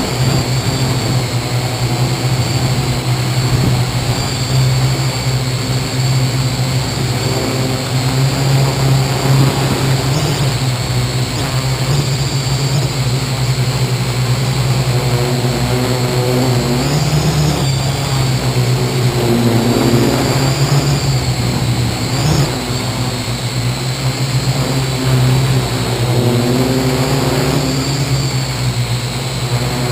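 Parrot AR.Drone 2.0 quadcopter's four electric motors and propellers running in flight: a steady hum with a high whine that wavers in pitch a couple of times past the middle as the throttle changes.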